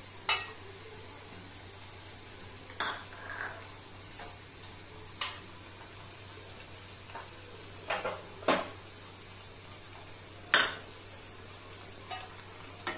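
A metal spoon stirring in a pan, clinking and scraping against it at irregular intervals, over a steady low sizzle of onions frying in oil.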